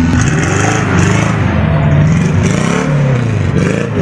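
Daihatsu Feroza 4x4 engine revving as it pulls past, its pitch rising and falling several times with the throttle.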